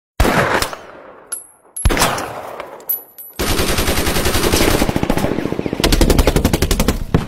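A few single sharp bangs, each dying away, then a rapid, even rattle of bangs, about ten a second, like automatic gunfire, which stops abruptly near the end.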